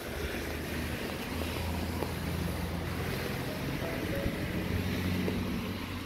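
Steady hiss of falling rain, with soft background music whose low sustained notes change every second or so.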